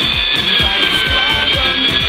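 Background music with a steady beat of about four low thumps a second.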